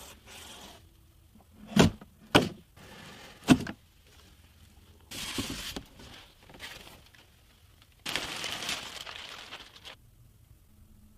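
Hands handling packaging during an unboxing: three sharp knocks or thunks in the first few seconds, then two longer sliding, rustling sounds, the second lasting about two seconds.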